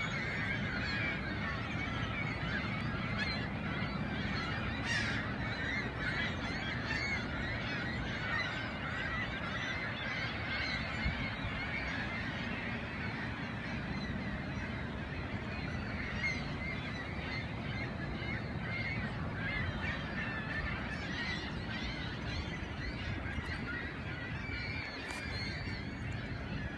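A large flock of waterbirds calling over one another without pause, a dense chorus of honking cries, over a low steady rumble.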